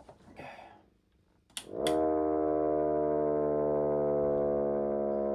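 Miniature Federal Signal STH-10 siren replica with horns, driven by an induction motor, switched on with a couple of clicks about a second and a half in. It winds up within a fraction of a second and then holds a steady wail of several tones at once.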